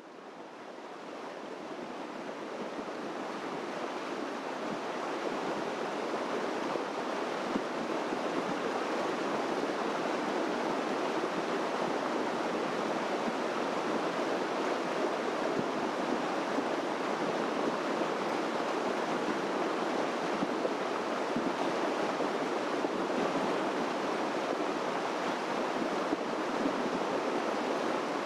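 Steady rush of running water, fading in over the first few seconds and then holding level.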